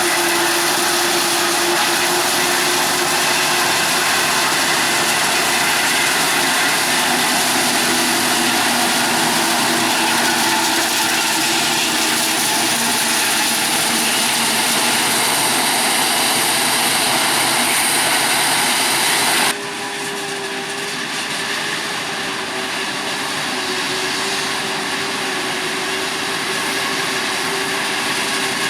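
Krone BiG X 1180 forage harvester chopping maize: heavy, steady engine and chopper noise with a high hiss of crop flow. About twenty seconds in, the sound cuts abruptly to a somewhat quieter, steady machine sound with a higher hum.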